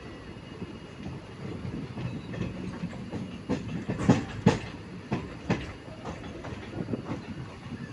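Passenger train coaches running, heard from an open coach door: a steady low rumble with the wheels clacking over rail joints. A sharp pair of clacks about four seconds in is the loudest, and more spaced clacks follow.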